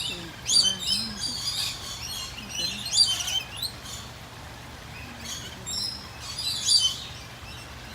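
Several small birds chirping and trilling in short, high-pitched clusters.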